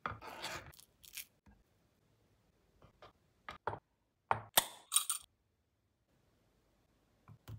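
Food and small glass dishes being set down on a wooden serving board. A soft rustle at the start, then a few light taps, and sharp clinks about four to five seconds in.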